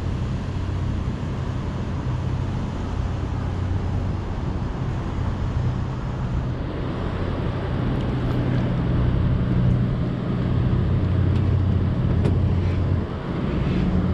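Steady low engine drone with a constant hum, running unchanged throughout.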